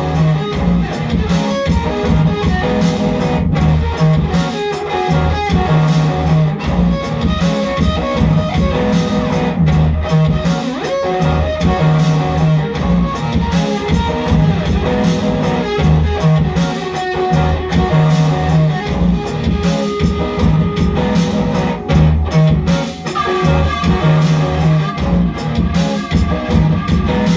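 Live music: an electric guitar played through an amplifier over a low bass note that repeats in a steady pattern.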